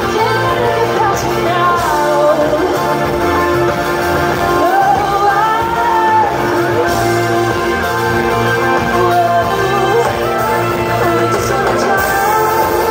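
Live pop-rock band performance: a female lead vocal sings a melody over electric guitar, bass guitar and drums, heard from the audience in a concert hall.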